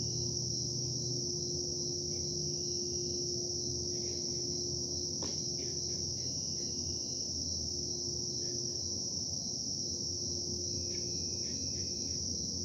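Steady low hum of industrial machinery running, with a constant droning tone, under an unbroken high chorus of crickets. A few short high tones come and go, and there is one sharp click about five seconds in.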